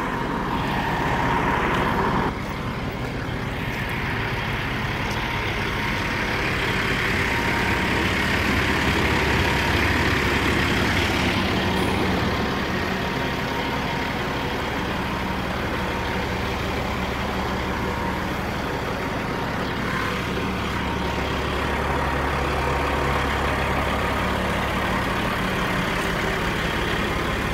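Freightliner Classic heavy tow truck's diesel engine running steadily, a little louder for a few seconds in the middle.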